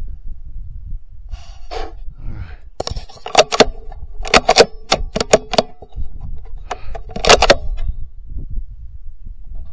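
Rifle being handled on its rest: several clusters of sharp metallic clicks and knocks with a light metallic ring, starting about three seconds in and ending near the end.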